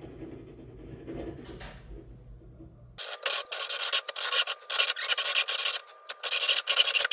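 A hand hacksaw cuts through a metal part in quick back-and-forth rasping strokes, sawing a clearance slot by hand in place of milling it. Only a faint hum comes before the sawing starts abruptly about three seconds in.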